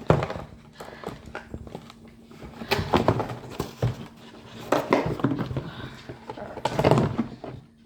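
Cardboard box and plastic packaging being handled, rustling and crackling in several bursts with sharp knocks, as a doll is pulled free of its box. A low steady hum runs underneath.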